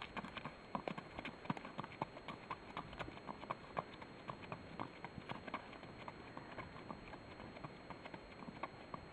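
Horse's hooves striking sandy ground at a walk: faint, irregular clip-clop, a few hoof strikes a second.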